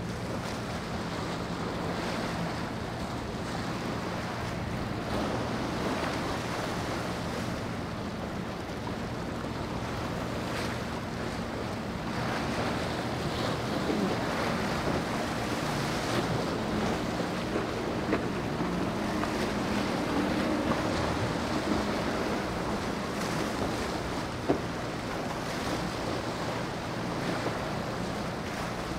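Waves washing against a rock jetty and around a kayak, with wind on the microphone and a low steady drone of boat engines underneath. A few small knocks come in the second half.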